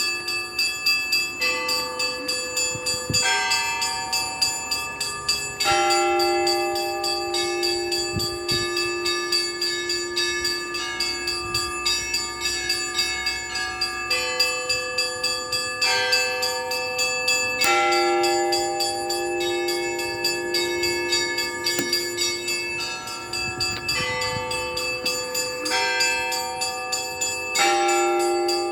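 Russian Orthodox church bells ringing a zvon, a continuous peal. Small bells strike rapidly over middle bells whose chord changes about every two seconds, and a lower bell sounds under them again and again.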